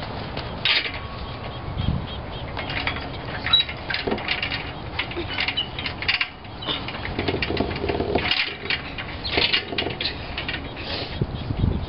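Wind buffeting the camera microphone in irregular gusts, with scattered knocks and rustles.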